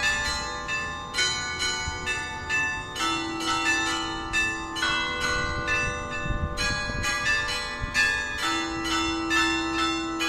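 Church tower bells ringing for mass, struck about twice a second with their tones overlapping and ringing on.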